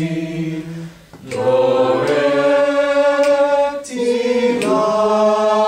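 A class of students singing the C major scale descending slowly in solfège, one long held note after another, with a short breath about a second in.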